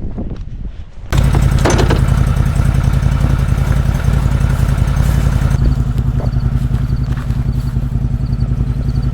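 A small vehicle engine running steadily, cutting in abruptly about a second in after a few low thumps.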